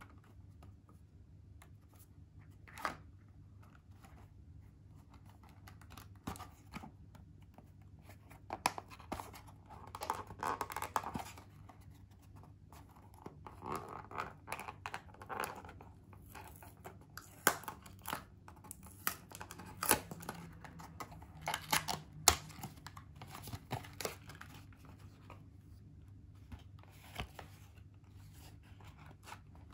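Cardboard chocolate box handled and opened by hand: scraping and tearing of the paperboard and its opening tab, with sharp taps and clicks, in irregular bursts between quieter gaps.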